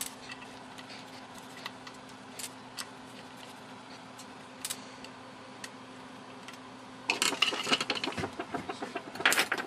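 Small clicks and taps of an Aim-TTI I-Prober 520's plastic case and circuit board being handled, over a faint steady hum. About seven seconds in, louder clattering and scraping as the board is lifted out of the case and its cable pulled aside.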